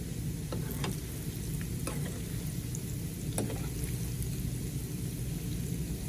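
Coconut chinchin dough pieces sizzling steadily as they deep-fry in hot canola oil, stirred with a utensil that gives a few light clicks.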